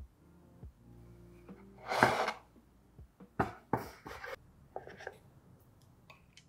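Soft music dies away, then a loud rushing burst about two seconds in, followed by several short knocks and scrapes of handling noise.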